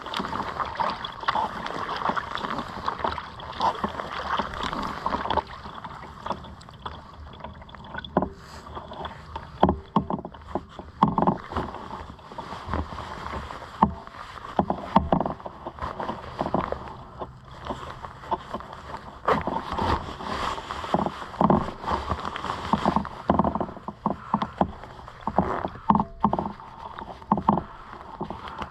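A kayak being paddled on open water: a steady rush of water for the first few seconds, then short, irregular splashes as the paddle blades dip and drip and small waves slap against the hull.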